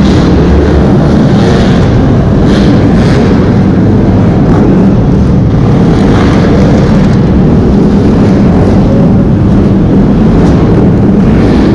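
Several enduro dirt-bike engines running and revving as riders work through a log obstacle section, a very loud, unbroken engine noise.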